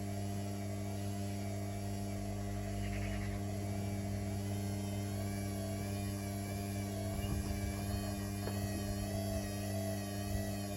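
Hoover H3W69TME washing machine running with a steady electrical hum and a faint warbling whine. Irregular low rumbles join from about seven seconds in.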